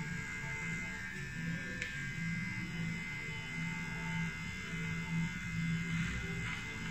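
Electric beard clipper buzzing steadily as it trims a full beard, the hum swelling and easing as the blades work through the hair.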